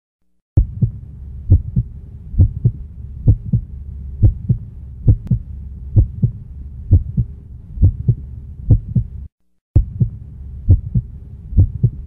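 Heartbeat sound effect: pairs of deep thumps (lub-dub) a little under once a second, over a steady low hum, stopping for a moment about nine seconds in and then going on.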